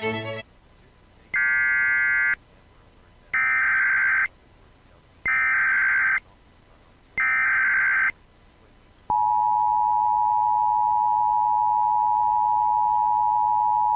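Emergency Alert System data bursts: four short, harsh digital chirps about a second long and two seconds apart. They are followed by the EAS two-tone attention signal, a steady 853 and 960 Hz tone held for about five seconds that cuts off sharply. Together they open an Amber Alert cancellation broadcast.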